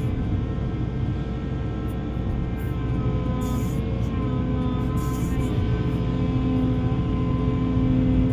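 Heavy diesel construction machine running steadily: a continuous low engine drone with a held hum.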